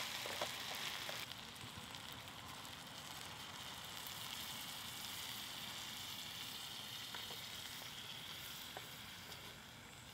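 Ground beef, potatoes and tomatoes sizzling in a frying pan over campfire coals, with a few clicks of a wooden spoon against the pan in the first second or so. The sizzle softens near the end.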